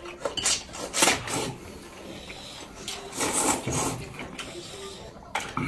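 Noodles being slurped from a bowl held to the mouth: a short slurp about a second in and a longer one around three seconds in.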